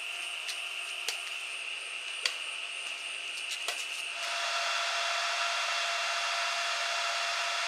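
Stick welding arc burning steadily: a continuous hiss with a few sharp pops, getting louder about four seconds in.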